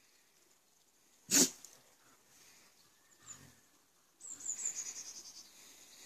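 Greyhound rolling on its back in grass, giving one loud, sharp snort about a second in and a smaller one a couple of seconds later. Near the end comes a quick run of rapid scuffling pulses as it wriggles.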